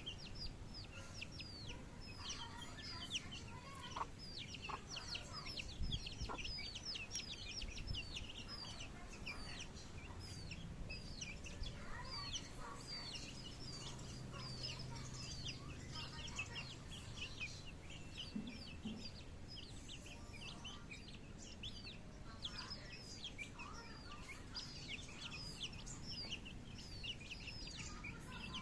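Country chicken chicks peeping continuously: many short, high notes that slide downward, overlapping. Lower hen clucks come in now and then.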